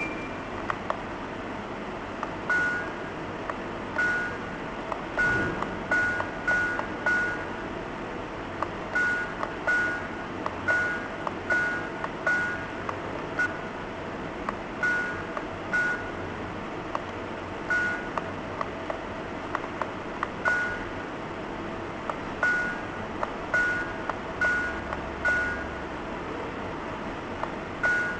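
Digital alarm clock giving a short electronic beep with each press of its setting buttons as the time is being set. About two dozen single-pitch beeps come at irregular spacing, sometimes several in quick succession, over a steady hiss.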